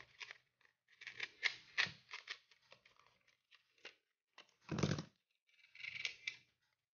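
Plastic pry card scraping and clicking along the edge of a cracked Oppo A3S LCD panel as it is prised off its adhesive in the phone frame, in a run of irregular clicks and crackles. A louder knock comes about five seconds in.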